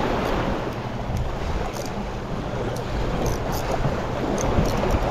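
Wind buffeting the microphone over sea waves washing against the shore, with a few faint light ticks.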